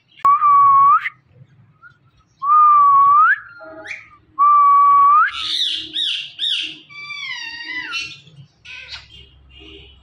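Indian ringneck parakeet whistling: three long, very loud whistles, each held on one note and flicking upward at the end. These are followed by a quick run of short rising chirps and a falling, raspier call.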